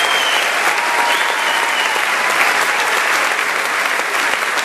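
A large crowd applauding steadily, sustained clapping of many hands at the end of a speech.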